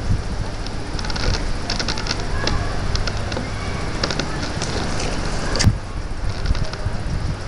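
Steady low rumble with scattered clicks and creaks from a nylon-webbing slackline shaking the camera mounted at its end as someone walks it, and one sharp knock about five and a half seconds in as he comes off the line.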